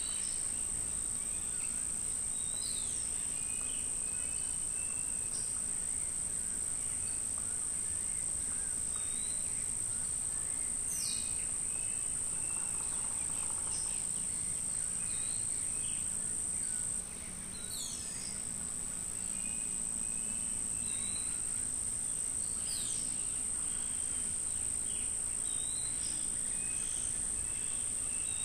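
Steady high-pitched drone of insects, with scattered bird calls: short chirps and a few quick downward-sweeping whistles. The insect drone drops back for a moment a little past the middle, then returns.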